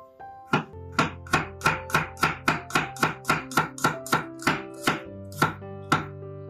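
Kitchen knife slicing garlic cloves on a wooden cutting board: a quick run of sharp knocks as the blade hits the board, about three a second, spacing out near the end. Background music plays underneath.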